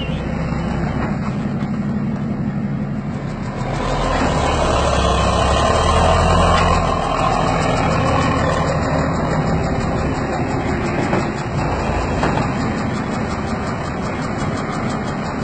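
Diesel engine of a six-wheeled military recovery truck running as the truck manoeuvres, getting louder about three and a half seconds in, then settling a little lower for the rest.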